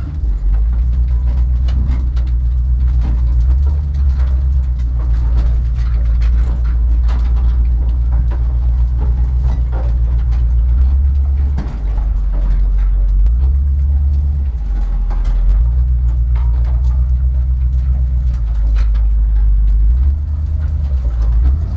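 Engine of a Badger 6x6 off-road truck running under load on a rough trail, a heavy low rumble whose note drops and rises a few times, with frequent knocks and rattles from the body.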